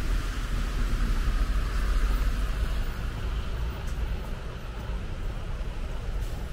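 Road traffic on wet pavement: tyre hiss that swells about one to two seconds in and then eases, over a steady low rumble.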